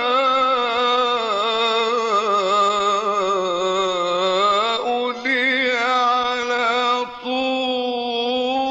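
Solo voice singing an Arabic devotional nasheed, drawing out long wavering melismatic notes without words, with brief breaks about five seconds in and again about seven seconds in.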